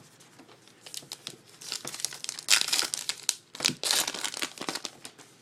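Trading-card pack wrapper crinkling and tearing as it is opened, in dense crackles that come in two louder spells about two and a half and four seconds in.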